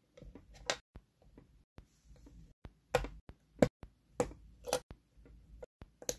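Plastic LEGO bricks being handled and pressed together: a string of short, sharp clicks, about six over several seconds, with faint handling noise between them.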